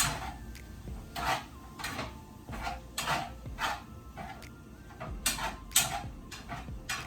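A spice shaker shaken over food: a series of short, irregular rattling shakes, about one or two a second.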